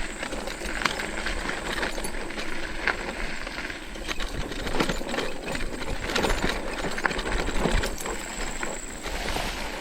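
E-bike being ridden over a rough forest track: irregular knocks and rattles over a steady running noise.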